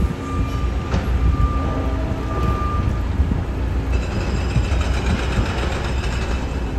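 Diesel engines of EMD MP15AC switcher locomotives rumbling steadily as the work train rolls slowly through the switches. About four seconds in, a high metallic squeal from the wheels joins the rumble.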